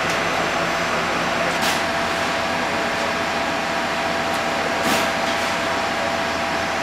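Fire engine running at a standstill: a steady mechanical drone with a constant whine, broken twice by a brief sharp click.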